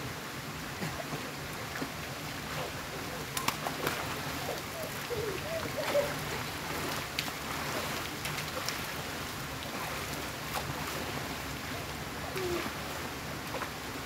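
Children splashing in a spring-fed pool: irregular splashes and slaps of water over a steady rush of water, with a few brief children's shouts.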